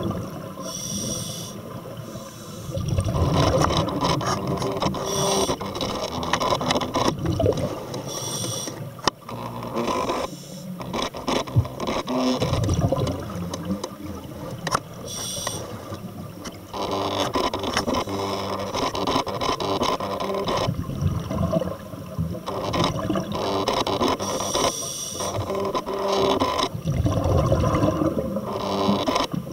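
Scuba diver breathing through a regulator underwater: about four breaths, each a short hissing inhale with a thin whistling tone, followed by a longer bubbling exhale.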